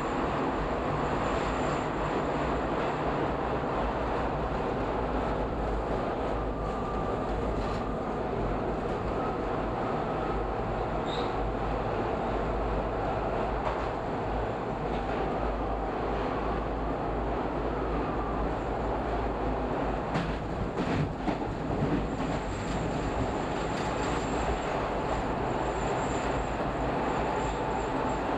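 Subway train running through a tunnel: a steady rumble of wheels on rails, with a cluster of sharp clicks and knocks about two-thirds of the way through.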